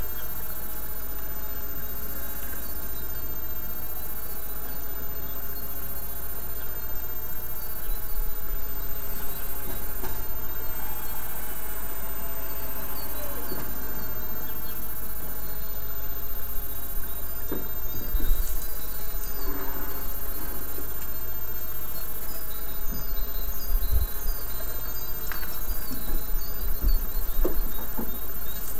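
Steady outdoor background noise with runs of high-pitched chirping through the second half, and a few low thumps.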